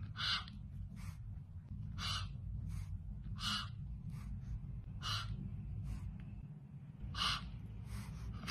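Young kitten giving a series of short, high-pitched meows, roughly one every second, over a steady low hum.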